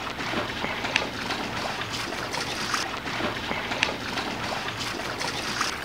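Dogue de Bordeaux puppy wading and pawing in a plastic kiddie pool, water sloshing with small irregular splashes.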